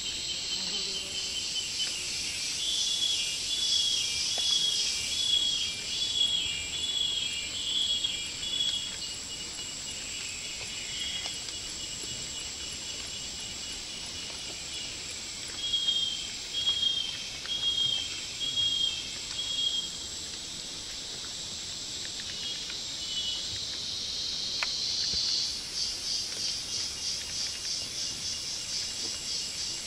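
Rainforest insect chorus: a steady high-pitched drone, two runs of repeated chirps, and a pulsing buzz that sets in near the end.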